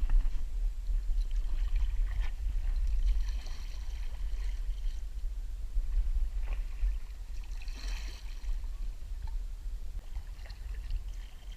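Water sloshing and splashing around a kayak on a creek, in a few hazy spells, over a steady low rumble on the microphone.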